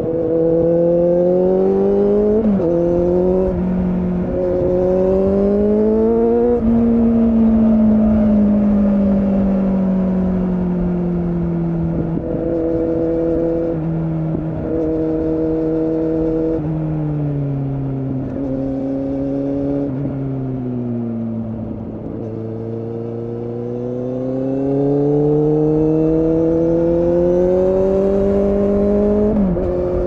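Kawasaki Z800 inline-four motorcycle engine and exhaust under way. It accelerates through two quick upshifts in the first few seconds, then eases off with the engine note falling slowly and a couple of gear changes. From about two-thirds in it pulls again, pitch rising steadily until another upshift near the end.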